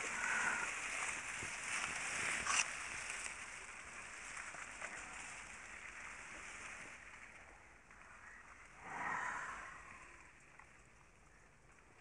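Dry grass stalks rustling and crackling as they are brushed through, with a sharp crack about two and a half seconds in and a brief louder burst around nine seconds in.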